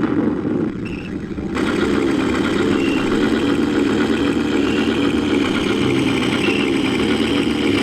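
Military tank engine sound effect, a heavy engine running steadily.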